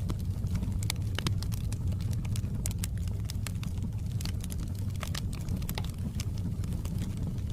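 Wood fire crackling in a fireplace: irregular sharp snaps and pops, several a second, over a steady low rumble of the flames.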